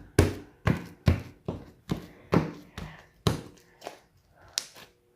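Slime being dabbed and pressed onto a tabletop to pick up leftover bits, a soft tap about twice a second that thins out and fades near the end.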